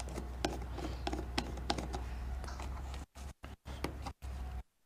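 Small irregular clicks and taps of hands handling wires and a plastic electrical box, over a steady low hum. In the second half the sound cuts out several times for a moment.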